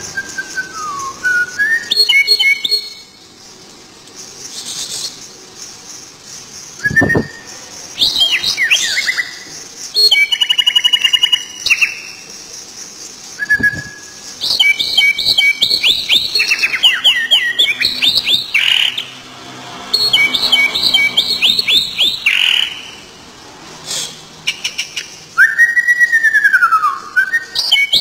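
Karawan (stone-curlew) calling: bursts of loud whistled notes and fast, rapidly repeated trilling runs with quieter gaps between them, and a long arched whistle that rises and falls near the end. Two sharp clicks sound around a quarter and halfway through.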